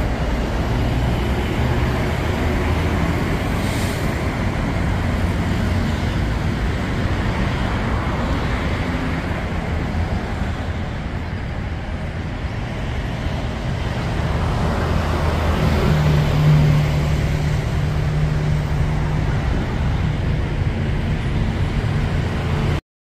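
Steady city road traffic, cars and heavier vehicles passing, with a large vehicle's engine hum growing loudest about two-thirds of the way through.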